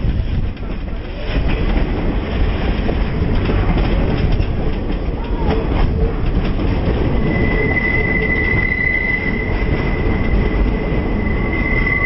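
Passenger train rolling along, heard from an open-sided car: a steady rumble of wheels on rail, with a high, steady wheel squeal setting in about seven seconds in and holding.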